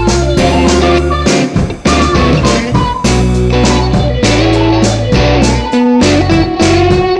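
Background music: a blues-style guitar track with bass and a steady beat.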